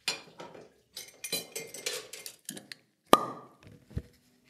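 Irregular small knocks, taps and clinks, with one sharp click about three seconds in and a dull thump near the end, after which a low steady hum starts.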